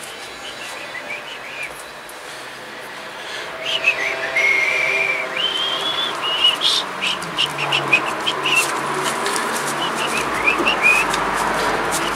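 Black electrical tape being pulled off the roll and wound around pencil legs, a rasping crackle that builds partway through with a run of sharp ticks. Over it a bird sings high whistled phrases, some notes held, some gliding.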